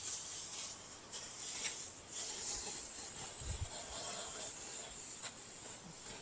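Aerosol can of oven cleaner spraying in long hissing bursts with short breaks.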